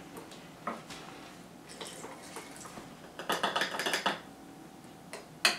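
Light clinks of glass stirring rods in plastic cups and a little liquid handling as hydrogen peroxide is added to a cup of baking soda and yeast, with a short run of rapid clinking and clatter a little past three seconds in and a sharp click near the end.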